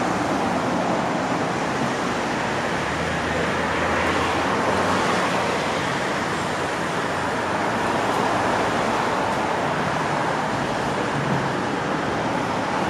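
Steady road traffic noise: a continuous wash of cars going by on the street, swelling and easing slightly without a break.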